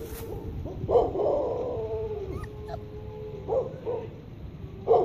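Three-week-old Alaskan malamute puppy whimpering and yipping: a longer whine about a second in that trails off into a thin held note, two short yips a little past the middle, and another cry starting near the end.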